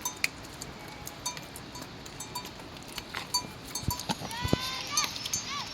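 Animal calls: a quick run of short, high-pitched calls that rise and fall, about four seconds in, among scattered light clicks and knocks.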